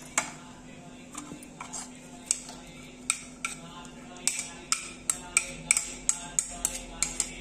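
Steel kitchen knife blade tapping and scraping on a ceramic plate as chopped onion is scraped off into a plastic bowl: a string of sharp clinks that come faster in the second half, about two or three a second.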